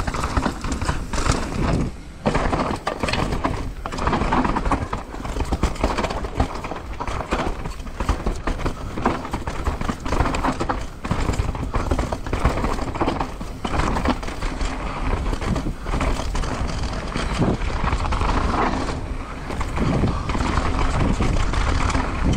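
Downhill mountain bike descending a dirt trail: tyres running over dirt and roots while the chain and frame rattle in a constant, irregular clatter of knocks over the bumps.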